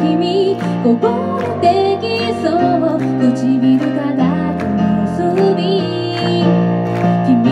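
A woman singing live into a microphone, accompanying herself on a Yamaha electric keyboard playing held chords.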